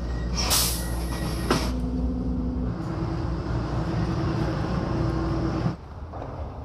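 Metro train running, heard from inside the carriage: a steady low rumble with a motor hum. A loud hiss lasting about a second comes about half a second in. The rumble stops suddenly near the end.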